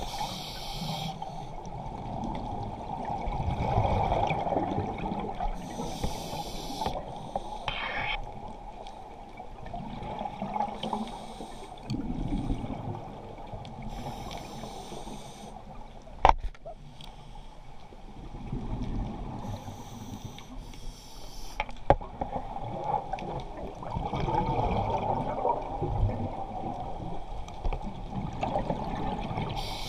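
Scuba diver breathing through a regulator underwater: a brief hiss on each inhalation about every six to seven seconds, followed by the rumble and gurgle of exhaled bubbles. Two sharp clicks come about halfway through and again some six seconds later.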